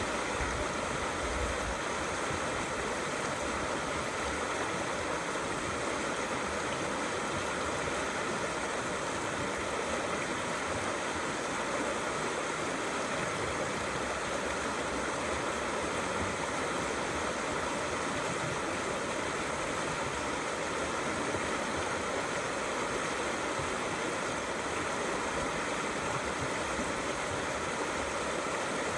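Small river flowing steadily, a constant rushing and gurgling of water over stones.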